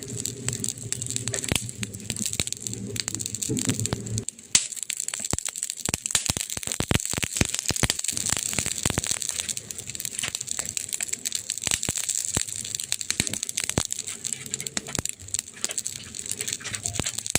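Burning wood crackling and popping: many sharp crackles of varying strength over a steady hiss. A low rumble lies under it for the first four seconds or so, and one pop just after that is the loudest.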